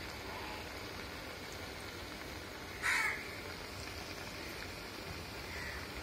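Urad dal vadas sizzling steadily as they deep-fry in hot oil. About three seconds in, a single short crow caw sounds out, louder than the frying.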